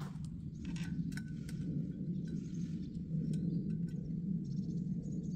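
Scattered light metallic clicks and taps of hands fitting a clutch disc and pressure plate onto a VW 1300 Beetle engine's flywheel, over a steady low background hum.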